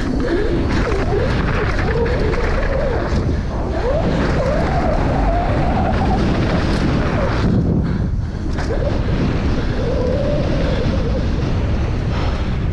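Downhill mountain bike ridden fast over rough trail: steady rush and rumble of wind on the microphone, mixed with the bike's rattle and tyre noise, easing briefly about eight seconds in.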